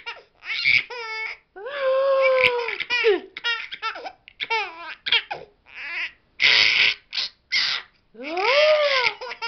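Hearty, high-pitched laughter in rapid repeated bursts and long drawn-out arched cries, broken by short breathy bursts, the loudest about six and a half seconds in.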